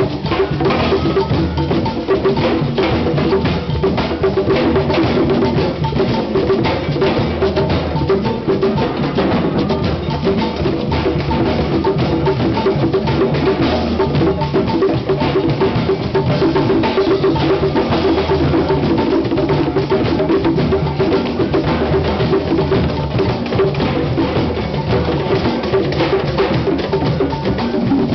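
Drum circle of congas and other hand drums playing a fast, steady groove together, dense overlapping strikes without a break.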